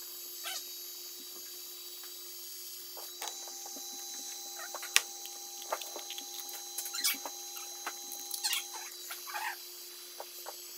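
Electric heat gun blowing steadily with a hum and hiss to loosen a vinyl stencil, while the vinyl and tape are peeled and crumpled off a glass mug in scattered rustles, crackles and small clicks.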